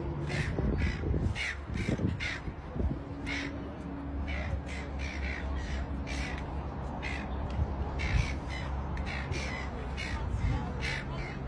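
Birds cawing over and over, short harsh calls several times a second, over a low steady rumble.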